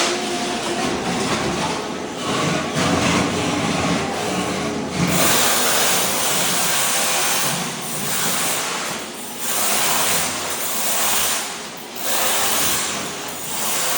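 Ride-on floor scraper running, its blade scraping thin-set mortar off a concrete slab: a continuous harsh scraping noise that swells in surges every couple of seconds in the second half.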